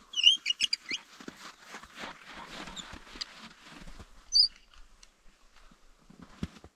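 A small bird's high chirps: a quick run of them in the first second and one more about four seconds in, over light irregular ticks and rustles.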